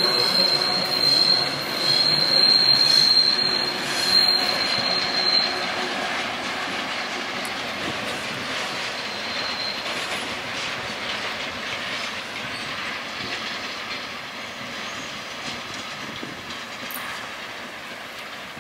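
Freight wagons of a track-laying train rolling past and away on curved track, the wheels squealing in a steady high whine for the first five seconds or so and briefly again near ten seconds. The rolling noise and wheel clatter fade steadily as the train recedes.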